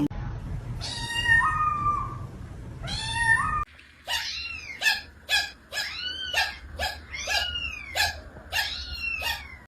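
A domestic cat giving two drawn-out, rising meows. Then a cat makes a rapid run of short, high, arched calls, about three a second.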